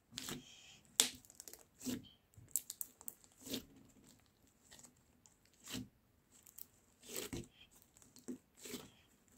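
Bubbly slime squeezed and stretched by hand, its trapped air bubbles popping in faint, irregular crackles and snaps.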